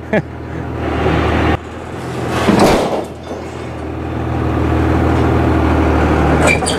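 Truck engine running under load and growing steadily louder as it pulls the trailer out from under the tractor. There is a short rough rumble about two and a half seconds in.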